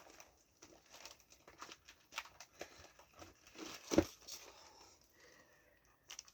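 Faint rustling and crinkling of comic-book packaging being handled, with scattered small clicks and a single knock about four seconds in.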